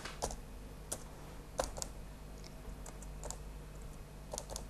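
Laptop keyboard keys being tapped: a dozen or so short, irregular key clicks as numbers are typed in.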